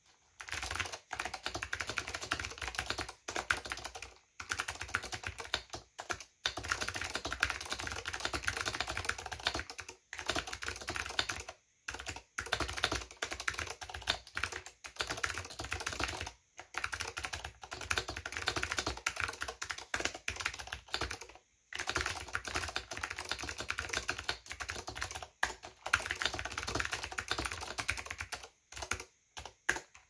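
Fast typing on a Leading Edge DC-2014 keyboard with clicky Alps SKCM Blue switches and ABS doubleshot keycaps: a dense run of key clicks, broken by a few brief pauses.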